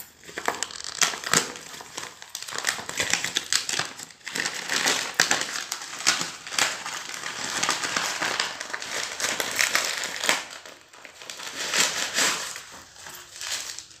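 Thin plastic courier wrapping and a paper envelope crinkling and rustling as they are unwrapped by hand, an irregular run of crackles that eases off briefly around two thirds of the way through.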